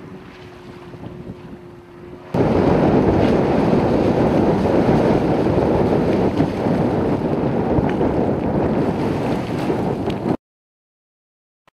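A motorboat engine humming steadily at a distance with light wind, then from about two seconds in much louder wind buffeting the microphone over the boat's engine and wash as it runs in close. The sound cuts off abruptly near the end.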